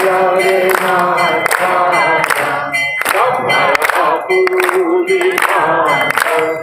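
Devotional singing with percussion. Sung lines with long, wavering held notes, punctuated by sharp percussive strikes.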